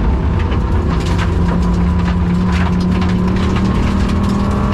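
Rally car engine with a bad misfire, heard from inside the cabin, pulling under load at speed, its pitch climbing slowly from about a second in. Irregular sharp clicks and rattles run through it.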